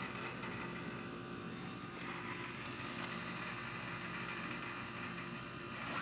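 Embraco hermetic refrigerator compressor running with a steady hum while the system is charged with R600a refrigerant.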